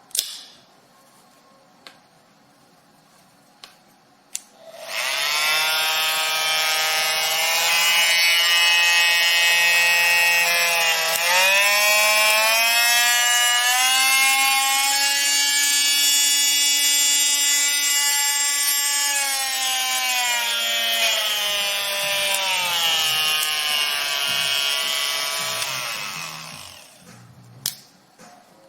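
Oscillating multitool motor starting after a few clicks, its whine rising in pitch as the speed is turned up, holding steady, then falling and winding down to a stop near the end.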